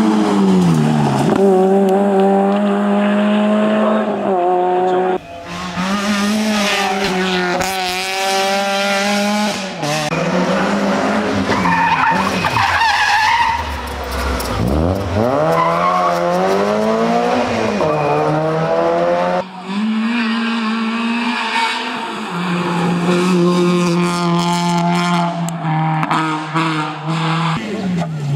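Small front-wheel-drive rally cars (Peugeot 106, 206 and Citroën Saxo) driven flat out. Their engines rev hard, with the pitch climbing and dropping sharply at each gear change and lift-off, as several cars pass one after another. Tyres squeal briefly through a tight tarmac corner near the middle.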